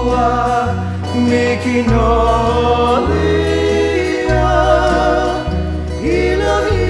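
Background music: a song with a singing voice over changing bass notes.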